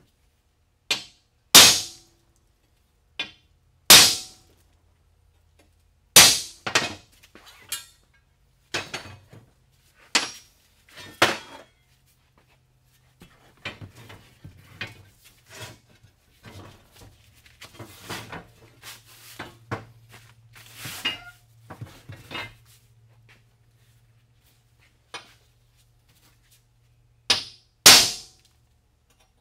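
Loud, sharp metal-on-metal knocks and clanks as the rusty steel leaves of a truck leaf spring are separated and handled, about a dozen irregular hits, some ringing briefly. Between them, from about a third of the way in to past two thirds, there is quieter clattering and scraping of the steel leaves.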